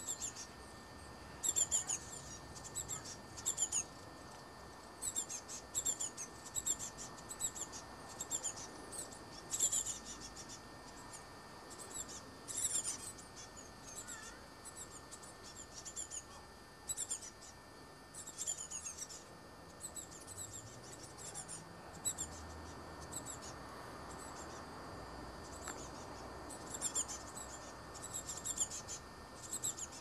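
High, thin calls of small songbirds: short falling notes in quick runs of several, repeated throughout with brief pauses.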